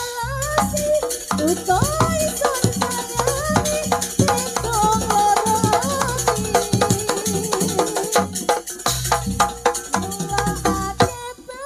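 Janger Banyuwangi ensemble playing an instrumental passage: a bending, wavering melody line over busy drum and percussion strokes.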